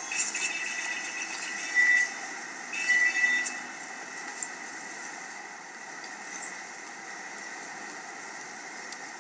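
A high-pitched squeal from a vehicle, a steady tone that swells loudly twice in the first few seconds and then carries on faintly over a steady background hiss.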